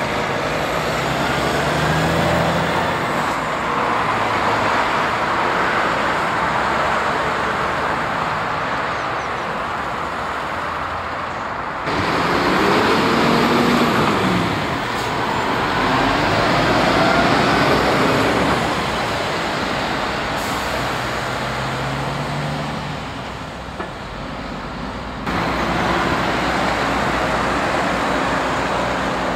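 Heavy diesel trucks, some towing drawbar trailers, driving past one after another with engine and tyre noise. Their engine notes rise and fall as each pulls through the junction. The sound changes abruptly twice, near 12 seconds and near 25 seconds.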